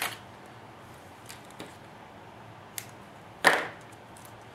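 Handling of a small RC sound module and its wiring harness: a few faint plastic clicks, then one sharp knock about three and a half seconds in as the module and connectors are picked up and shuffled in the hands.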